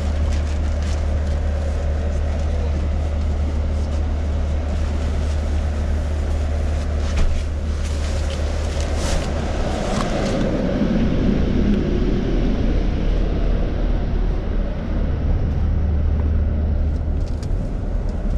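Steady low hum of a parked double-decker coach with its engine and air conditioning running, heard inside the cabin, with rustling of plastic bags and a few brief knocks as passengers settle in.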